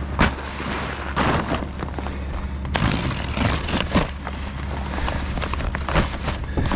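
Stiff, icy plastic tarp crackling and scraping in several sharp bursts as it is cut and handled, the longest run about three seconds in. Underneath, a steady low engine hum.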